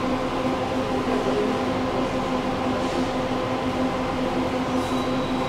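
Tram in motion at a steady speed: a continuous rumble of wheels on rails, with a steady hum.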